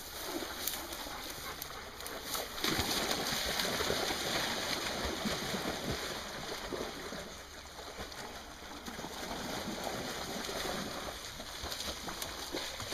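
Shallow river water running and splashing over stones, a steady rush that gets louder for a few seconds about three seconds in.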